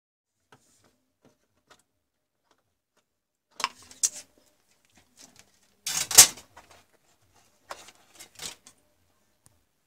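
Handling noises on a workbench: a few short knocks and clatters as the plastic LED power adapter and tools are moved about, the loudest about six seconds in and a few smaller ones near the end.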